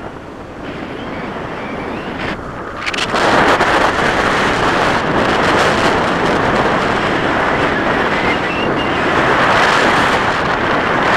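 Airflow buffeting the camera's microphone in tandem paragliding flight: a loud, even rush of wind noise that jumps louder about three seconds in and stays there.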